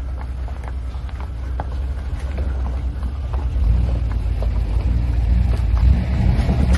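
GM C/K 1500 pickup truck's engine running at low speed as it crawls over a rocky trail towing a boat trailer, with scattered crunches and knocks from stones under the tyres. The engine drone grows louder a little over halfway through as the truck comes nearest.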